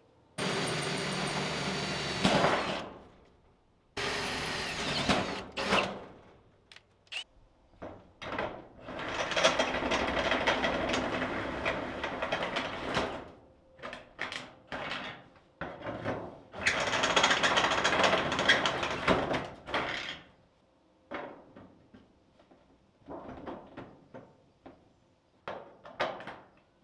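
Cordless drill driving a step drill bit through a corrugated steel wall panel, in several runs of a few seconds each, the bit grinding and chattering as it cuts the sheet metal. Short clicks and taps follow near the end.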